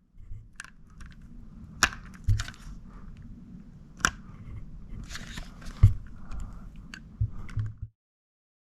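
Plastic external hard-drive enclosure being handled and pried apart: a string of sharp clicks and cracks, about half a dozen loud ones, with rustling handling noise in between. It stops abruptly near the end.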